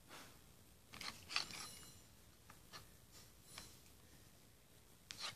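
Faint plastic clicks and scrapes of batteries being pushed and fitted into the battery compartment of a light-up LED letter, with the batteries not seating easily. The loudest cluster of clicks comes about a second in, softer ones follow in the middle, and there are a couple more near the end.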